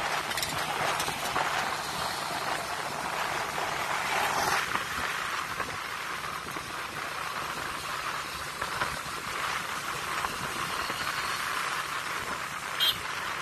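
Steady road and wind noise from a motorbike in motion, heard from a camera on the bike. A brief sharp sound stands out near the end.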